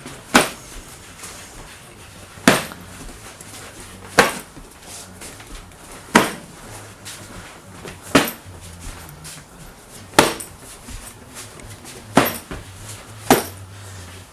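Kicks landing on a held striking pad: eight sharp smacks, about two seconds apart, the last two closer together.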